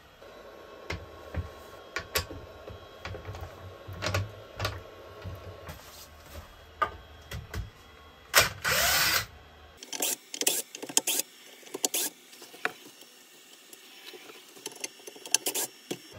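Clicks and knocks of a wooden disc and lathe chuck being handled, then a DeWalt cordless drill/driver running in one short burst of about a second, rising in pitch, about eight seconds in, followed by more clicks and taps.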